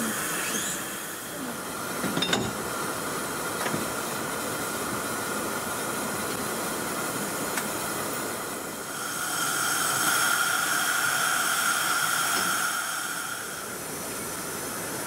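Narrow-gauge saddle-tank steam locomotive Edward Thomas standing with steam hissing steadily, the hiss growing louder for a few seconds in the second half. A brief knock about two seconds in.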